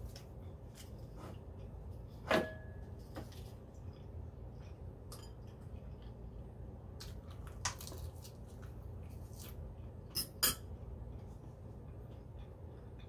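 Metal fork clinking against a ceramic salad bowl four times: one strike about two seconds in rings briefly, another comes a few seconds later, and two quick clinks follow close together near the end.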